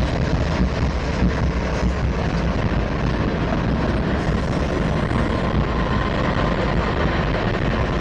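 Several diesel-electric locomotives rolling slowly past at close range, their engines running with a steady deep rumble over the sound of steel wheels on the rails.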